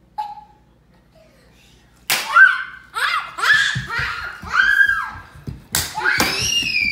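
A young child's excited, high-pitched wordless vocalizing and squealing, in short repeated bursts that start after about two seconds of quiet, with two sharp hits among them.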